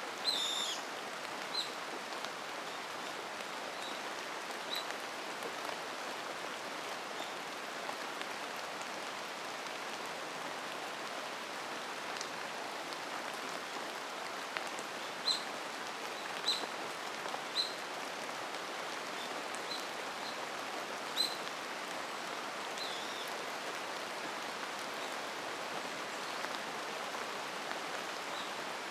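Steady rain falling, with scattered short, high bird chirps over it; a sliding call right at the start and a few louder chirps around the middle and two-thirds of the way in.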